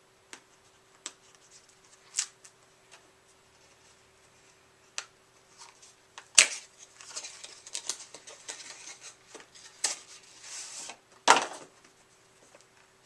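Plastic retail packaging being handled and opened: scattered clicks and crinkling, with two sharp knocks about six and eleven seconds in.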